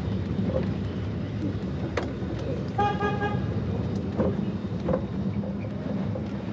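Tram running with a steady low rumble, a short horn toot about three seconds in, and a few sharp clicks.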